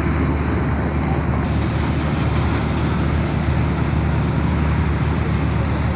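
Drilling rig's engine running steadily, a low, even drone.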